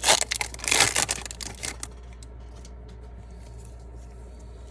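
A foil trading-card pack being torn open and crinkled in the hands, with dense crackling for about the first two seconds. It then stops, leaving only a low steady hum.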